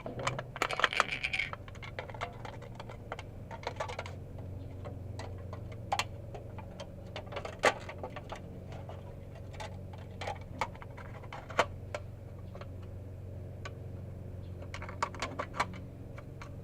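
Light clicks and crinkles, spaced irregularly, as thin aluminium can metal is handled, over a steady low hum.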